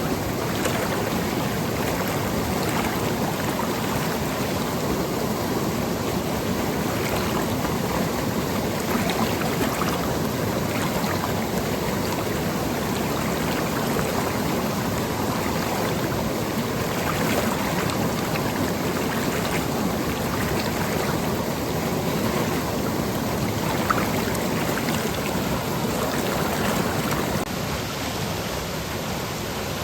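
Seasonal monsoon stream flowing over rocks and pebbles: a steady rush of running water, a little quieter near the end.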